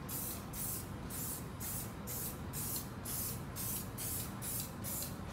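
Aerosol spray can of coating protectant being sprayed in short, quick hissing bursts, about three a second.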